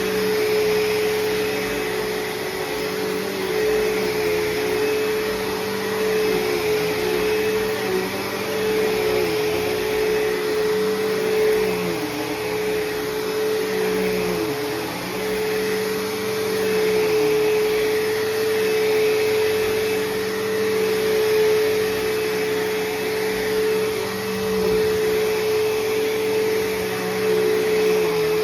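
Bissell CleanView Special Edition (3575-8) bagless upright vacuum running steadily with a strong, even motor whine; its lower tones dip briefly in pitch a few times around the middle.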